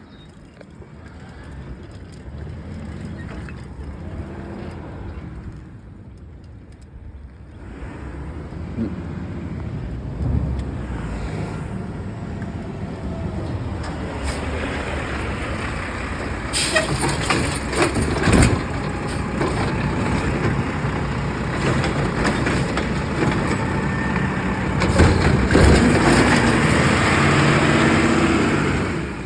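Garbage truck running close by, its engine growing steadily louder, with several sharp bangs along the way, typical of trash cans being emptied into it. The sound drops away suddenly near the end.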